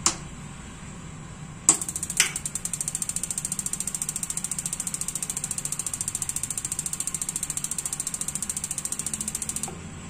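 Gas water heater's electronic igniter sparking as rapid, even ticking, about nine ticks a second, for about eight seconds, then stopping. It comes after sharp clicks about two seconds in, the gas solenoid valve opening. No flame is sensed, so the heater fails to light.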